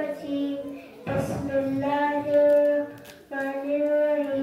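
A child reciting a surah of the Qur'an in a chanted, melodic style, drawing out long held notes. The recitation pauses briefly about a second in and again about three seconds in.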